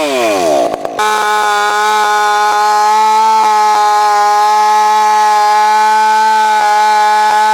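Chainsaw engine dropping in revs at the start and breaking off briefly, then running at a steady high throttle with an even, high pitch.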